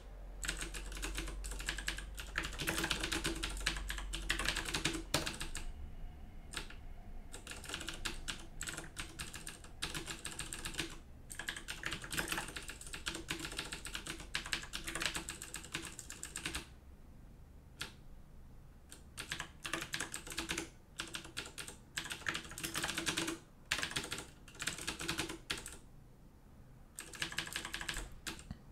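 Typing on a computer keyboard: quick runs of key clicks broken by short pauses, the longest a little past the middle.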